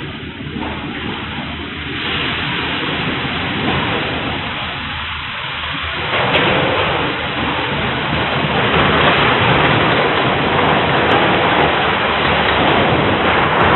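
Freight train derailing, a loud rumbling and grinding roar of the cars and locomotives that swells louder about six seconds in. It is heard through a home security camera's microphone, which cuts off the high end.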